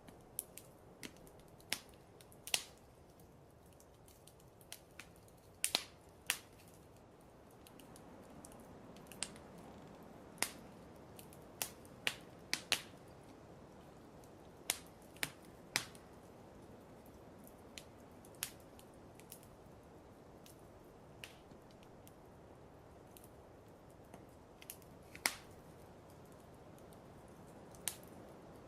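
Wood fire in a fireplace crackling: irregular sharp pops, a few of them loud, over a soft steady hiss.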